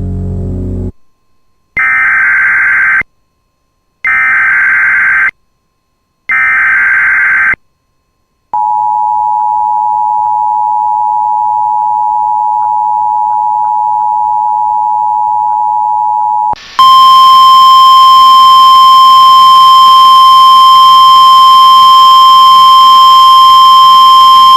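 Emergency Alert System header: three short bursts of warbling data tones, then the two-tone attention signal held for about eight seconds. Then a louder single steady tone of about 1050 Hz, the NOAA Weather Radio alarm tone, sounds for about nine seconds and stops near the end. Together they announce a new weather alert.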